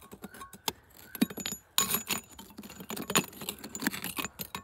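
Small pieces of aluminum scrap being scooped out of a still-warm container with a metal tool, clinking and scraping against each other and the metal. Scattered clicks at first, then a denser clatter from a little under two seconds in.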